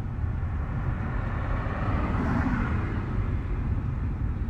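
Steady road noise inside a moving car's cabin: a low rumble with a fainter hiss above it.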